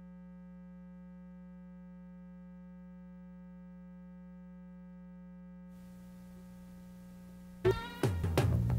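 Steady electrical mains hum with a buzzy stack of overtones on an old videotape's sound track. About six seconds in, a faint tape hiss comes up, and near the end music starts abruptly with a loud hit.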